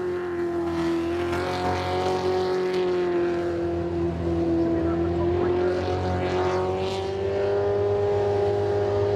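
Jet sprint boat's engine running at high, nearly steady revs, its pitch wavering slightly, with the hiss of water spray beneath.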